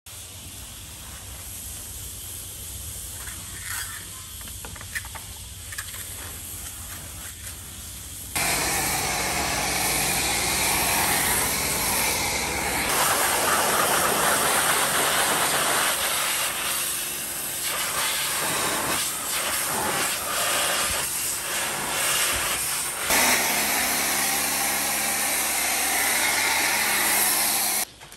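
High-pressure water jet from a car-wash lance spraying a car's wheel and bodywork: a loud, steady rushing spray that starts about eight seconds in after a quieter stretch and shifts at several cuts, with a low steady hum under it in places.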